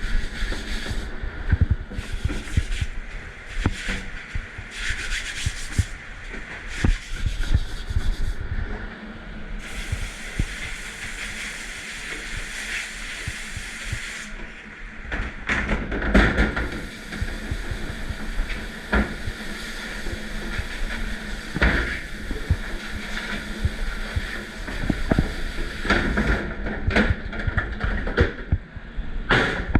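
Commercial dish pit at work: dishes, trays and racks clattering and knocking against each other over a steady hiss, with a stretch of smoother hiss about ten seconds in.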